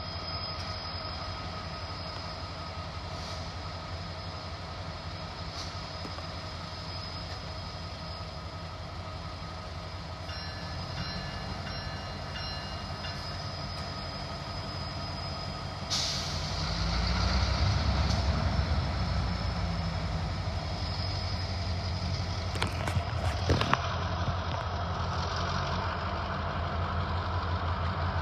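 Freight train's diesel locomotive idling with a steady low rumble and a faint high whine. About 16 seconds in, a hiss starts suddenly and the rumble grows louder, and a few sharp clanks follow near the end.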